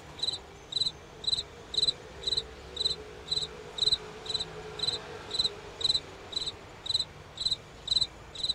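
A cricket chirping steadily, about two chirps a second, each chirp a quick high-pitched trill of a few pulses.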